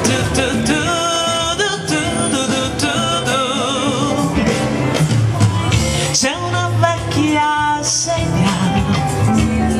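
A woman singing into a handheld microphone over instrumental backing with a steady bass line, holding long notes with vibrato.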